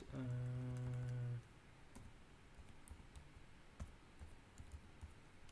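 A person hums one steady low note for about a second and a half at the start. After it come sparse computer keyboard key clicks as a command is typed.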